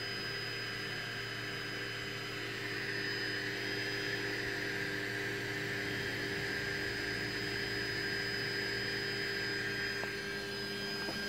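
Anet A3 3D printer's fans running steadily, joined about three seconds in by the whine of the stepper motors driving the bed up toward the nozzle during auto-home. The motor whine fades out near the end.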